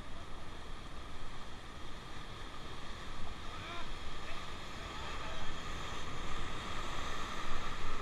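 Rushing river water and wind on the microphone, a steady wash that grows louder toward the end as the raft reaches rougher white water.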